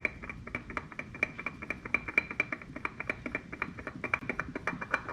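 Ratchet wrench clicking rapidly, about nine metallic clicks a second, as it unscrews the oil filter on a Honda 100 VTEC outboard.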